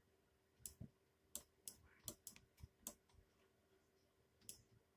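Faint, irregular clicks and taps, about eight in five seconds, some with a soft low thump beneath them.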